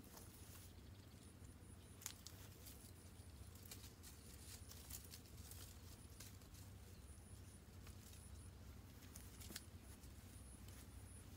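Near silence: faint rustling of leafy branches and a few soft clicks of sticks as branches are woven into a stick dome shelter frame, over a steady low hum and faint high chirps.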